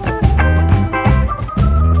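Background music: an instrumental track with held organ-like notes over a steady, pulsing bass line.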